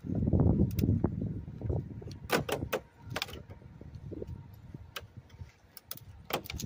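Air conditioner's casing being handled and worked on during disassembly: a low scraping rumble for the first second or so, then scattered sharp clicks and knocks.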